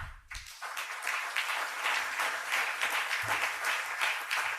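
Audience applauding, a steady sound of many hands clapping that starts about half a second in.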